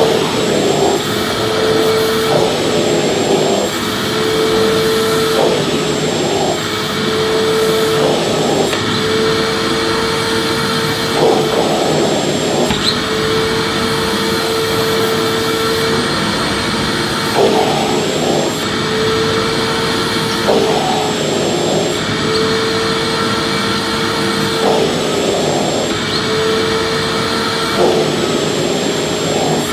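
Electric vacuum cleaner running continuously: a steady rushing noise with a motor whine that dips briefly every few seconds.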